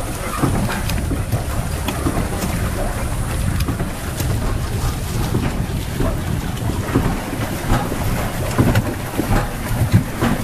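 Wind buffeting the microphone over water sloshing against a swan-shaped electric pedal boat as it moves across the lake, with scattered small splashes.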